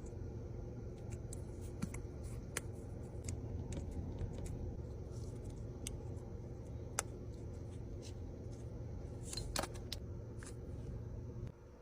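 Scattered small clicks and taps from handling phone parts and small repair tools during an iPhone screen replacement, over a steady low hum.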